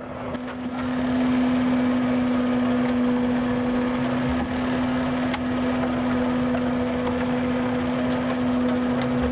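Fishing boat's engine and deck machinery running with a steady hum over a constant noise, swelling up about a second in.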